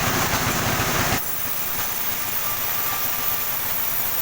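Sawmill machinery running loudly with a rough low rumble. About a second in, the sound drops abruptly to a quieter, steady running with a faint thin whine.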